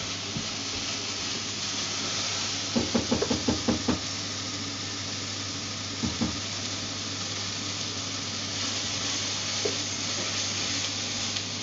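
Steady hiss of food cooking in a saucepan on the stove. A few seconds in comes a quick run of about six knocks of a utensil against the pot as it is stirred, with two more near the middle.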